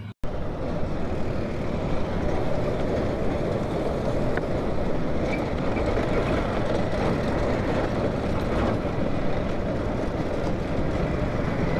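Motorcycle riding over a brick-paved road, recorded from a camera on the bike: a dense, steady rumble of engine and tyres on the paving stones.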